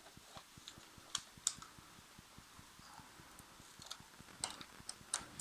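A few faint, sharp clicks and light taps, a few seconds apart, from the opened HP LaserJet M104a laser printer.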